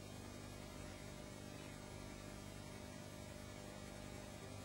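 Faint steady electrical hum with light hiss: quiet room tone.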